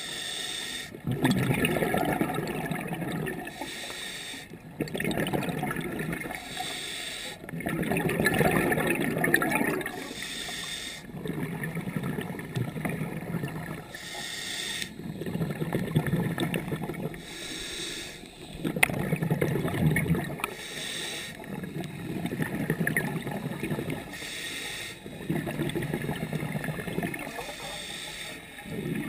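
Scuba regulator breathing heard underwater: a short hiss of each inhale through the demand valve, then a longer burst of exhaled bubbles gurgling past, repeating steadily about every three and a half seconds.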